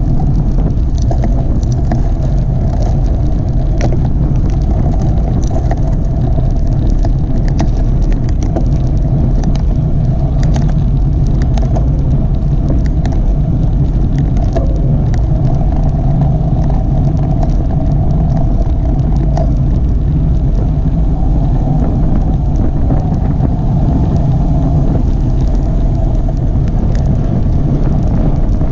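Wind buffeting on a bike-mounted action camera's microphone together with tyre and road rumble from a road bike riding on asphalt, a loud steady rushing low noise scattered with many small clicks.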